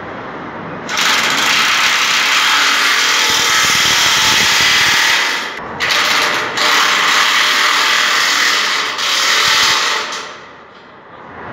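Handheld power tool driving bolts on the mast section of a rack-and-pinion construction hoist, running in several long stretches with short breaks and stopping about ten seconds in.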